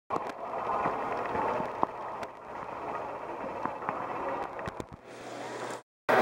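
Poolside background noise: a steady hiss and murmur with scattered small clicks and knocks, cutting out briefly near the end.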